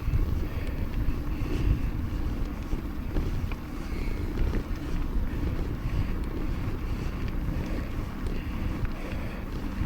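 Wind buffeting the microphone while riding a mountain bike on the road: an uneven, gusting low rumble, with a few faint ticks.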